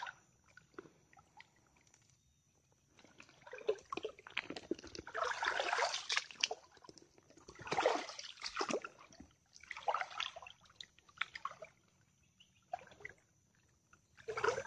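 Swamp water sloshing and splashing in irregular bursts as someone wades through it.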